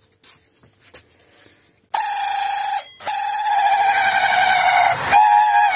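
Immersion blender switched on about two seconds in, its motor whining steadily as the blade purees a thick mash of boiled broad beans and garlic in a metal saucepan. It cuts out for a moment and starts again, the pitch wavering as it works through the mash. Faint handling clicks come before it starts.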